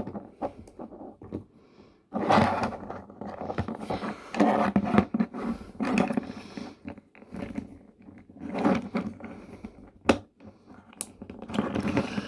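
A small hard-plastic transforming toy car handled and worked at its hinges: irregular rubbing and scraping of plastic parts, with sharp clicks twice near the end as joints snap into place.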